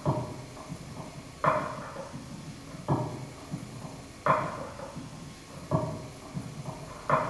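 A small mechanically driven marionette's feet tapping on a platform fitted with microphones, the sound picked up and amplified: a knock about every second and a half, six in all, with lighter ticks between.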